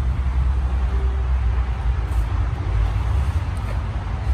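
A steady, uneven low rumble with no speech over it.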